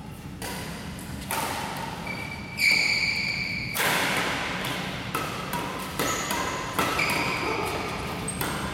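Badminton rackets hitting a shuttlecock in a fast doubles rally, sharp hits about once a second, echoing in a large hall. Sneakers squeak on the wooden court floor between shots, most clearly between about two and four seconds in.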